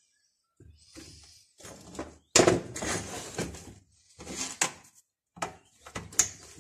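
Tools and a plastic chainsaw body being handled on a metal workbench: irregular clatter, clicks and knocks, the loudest a sharp knock about two seconds in.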